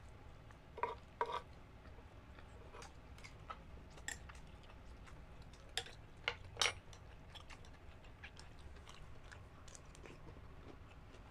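Close-miked eating: chewing with soft wet mouth clicks and smacks, with a few louder ones about a second in and again around six and a half seconds in.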